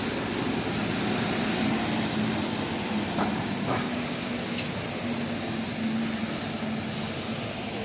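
Steady city street traffic: buses and cars passing, with a low steady engine hum underneath.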